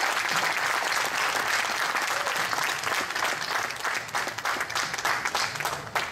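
Audience applauding, dense clapping that thins out near the end.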